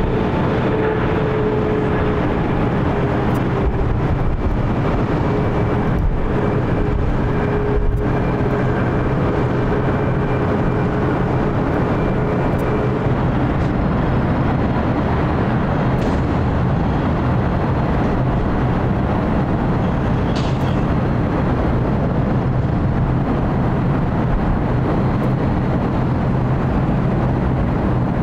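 Boeing 777 jet engines giving a steady, loud roar, with a whine over it that fades out about halfway through.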